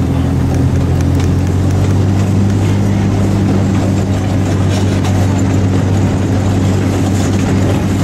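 Steady low engine drone of an amusement park train's locomotive pulling open passenger cars, heard from one of the cars as it rolls along slowly; the engine note drops slightly about two seconds in.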